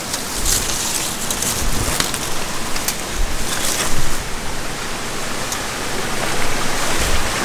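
Waterfall rushing: a loud, steady wash of falling water, with a few short clicks over it in the first half.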